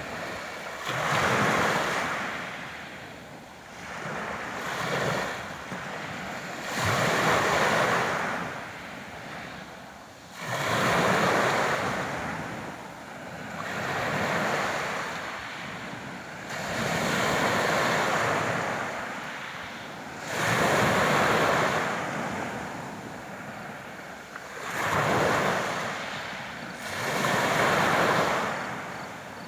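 Sea waves breaking and washing ashore, the surf swelling and fading every three to four seconds.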